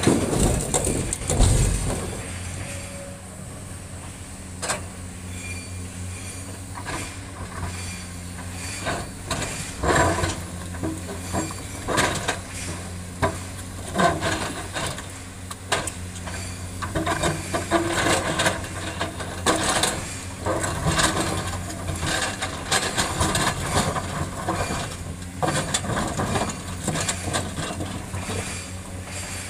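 Komatsu hydraulic crawler excavator working rock: the diesel engine runs steadily while the steel bucket scrapes and clatters among large boulders. In the first two seconds there is a heavy rumbling crash as a bucketload of boulders drops into a steel tipper truck body.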